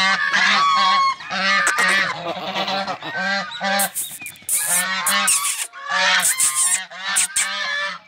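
A small flock of white domestic geese honking, their loud calls overlapping in quick runs with short breaks between them.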